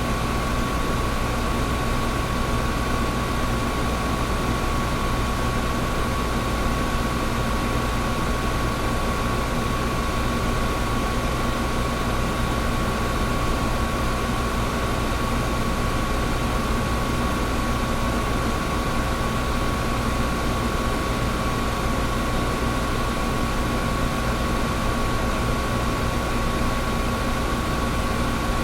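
Air conditioner running steadily: an even rush of air over a low hum, with a steady tone near 1 kHz and a fainter lower one.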